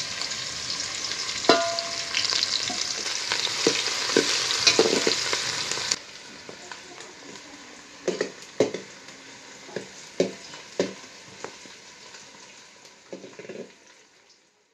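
Chopped onion sizzling as it fries in hot oil in an aluminium pot. About six seconds in the sizzle drops away suddenly, and a stirring spoon knocks against the pot in a quick series of short strikes.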